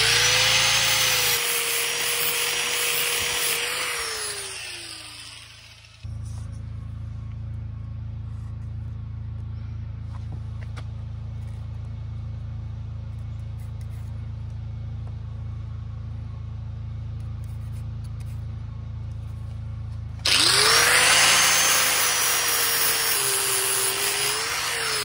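Angle grinder running at full speed, sanding the end of a wooden branch flat, then switched off and winding down with a falling whine. A steady low hum follows, then the grinder starts again near the end, its pitch dipping briefly as it bites into the wood.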